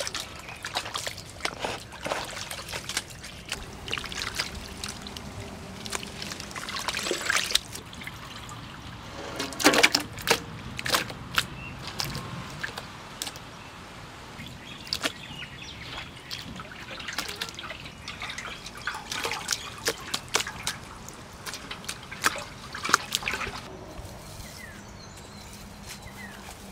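Raw beef pieces being washed by hand in a metal basin of water: irregular splashing, sloshing and trickling, with sharp drips and wet knocks as the meat is handled.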